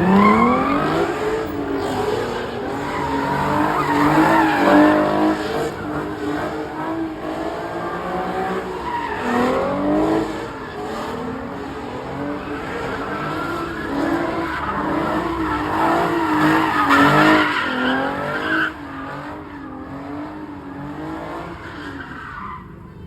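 Car engine revving hard at high rpm, its pitch repeatedly rising and falling, over squealing tyres as a car drifts. It drops away noticeably near the end.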